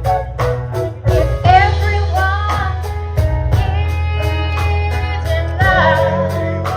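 Gospel music performed live: voices singing over guitar and a low bass line, with a steady drum beat.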